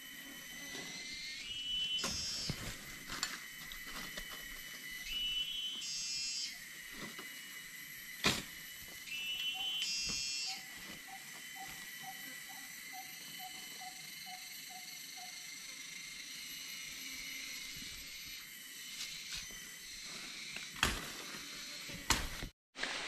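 Rainforest ambience: a steady high-pitched drone of insects. A louder call with a rising pitch comes three times, about four seconds apart, and a soft run of about a dozen evenly spaced low notes comes in the middle. A couple of sharp clicks are heard.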